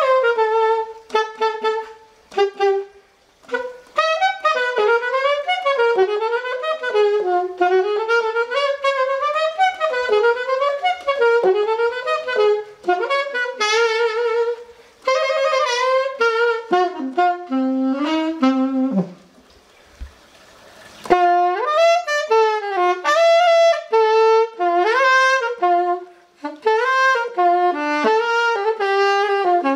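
Nickel-plated Ostrava alto saxophone played solo: a run of quick melodic phrases sliding up and down. The playing breaks off for about two seconds around two-thirds of the way through, then resumes.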